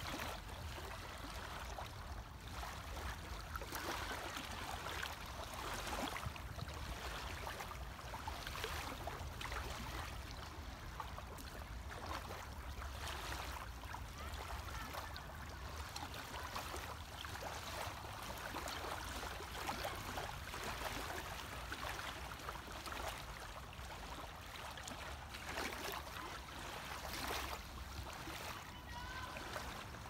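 Small lake waves lapping and washing at the shoreline, an uneven watery splashing, over a steady low rumble.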